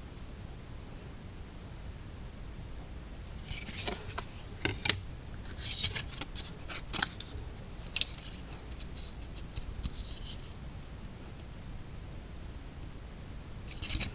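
Quiet rustling and light clicks of the kit's laser-cut wooden sheets and packaging being handled, in scattered bursts through the middle, under a faint, high pulsing tone that runs throughout.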